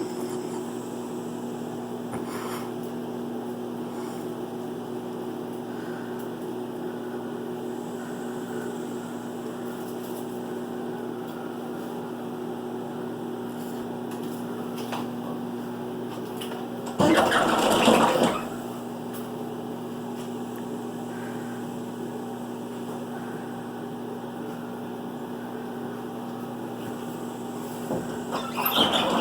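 Microwave oven running with a steady electrical hum. About seventeen seconds in, a brief louder clatter lasts a second or so.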